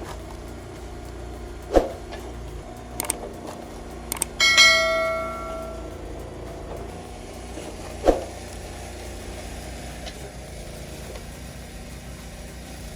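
Log-processing machinery running steadily, with several sharp knocks and one metallic clang about four and a half seconds in that rings like a bell for over a second before fading.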